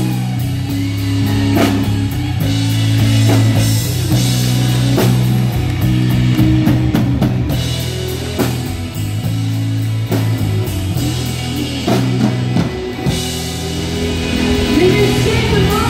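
Live rock band playing an instrumental passage: electric guitar over held bass-guitar notes and a drum kit, with regular drum hits and a few bending guitar notes near the end.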